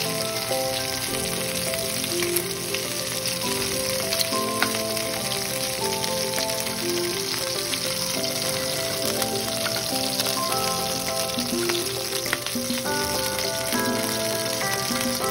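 Pork spare ribs searing in hot oil in a frying pan: a loud, steady sizzle. A melody of held notes plays underneath.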